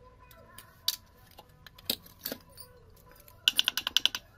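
Metal parts of a rusty electric water pump motor clinking as it is taken apart by hand: a few separate clicks, then a quick run of rattling metallic clicks near the end.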